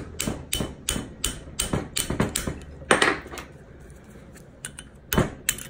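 Metal tool tapping on the small pin that holds the cable yoke on a John Deere SCV (selective control valve) spool to drive it out, in light, even taps about three a second, then a few more scattered clicks near the end.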